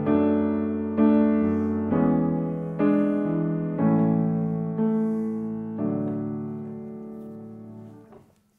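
Piano playing a quiet, slow harmonization of a melody, chords struck about once a second and each dying away, closing on a long held A major chord that fades out near the end.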